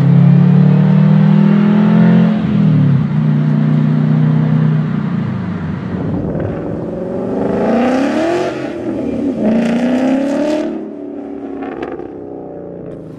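Sports car engine running loud and steady, dipping once, then revving up in rising sweeps broken by sudden drops, as when shifting up through the gears, and fading near the end.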